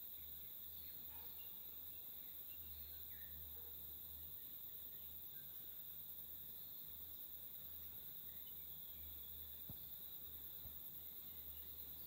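Faint, steady chorus of insects buzzing in native forest, with a few faint scattered chirps over it.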